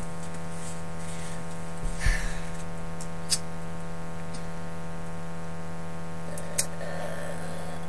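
Steady background hum made of several even tones, broken by a few faint clicks and knocks.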